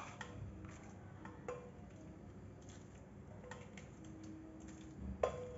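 A serving spoon clinking and knocking against a steel pot and a plastic bowl as sevai kheer is ladled out. There are a few faint knocks a second or two apart, the loudest one near the end.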